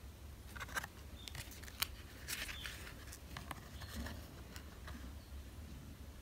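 Oracle cards handled by hand: faint clicks, taps and slides of stiff card stock as one card is moved over another, with the sharpest click about two seconds in, over a low steady hum.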